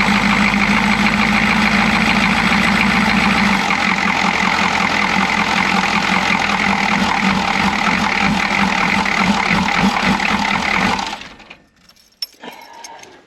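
Chevy G20 van's 6.2 L V8 diesel running with its air cleaner off and a rough idle that the owner keeps fighting and cannot explain; its sound changes about four seconds in, and it stops about eleven seconds in.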